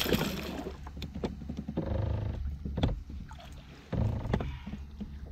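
A hooked fish thrashing and splashing at the water surface beside a kayak, loudest in the first half-second. A few sharp clicks and knocks follow as the fish is lifted out on the line.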